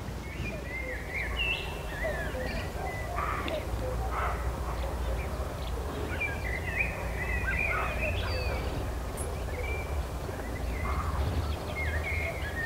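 Birds singing: a run of short chirping, warbling phrases, with a low steady rumble beneath.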